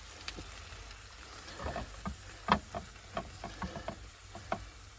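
A utensil scraping and tapping against cookware as stir-fried chicken and noodles are dished up: a string of irregular light clicks over a faint hiss, the loudest about two and a half seconds in.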